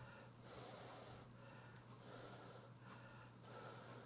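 Near silence: faint breathing through the nose and soft chewing from a person eating, swelling about once a second, over a steady low hum.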